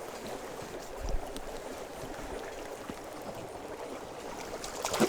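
River water running steadily, with a small low thump about a second in.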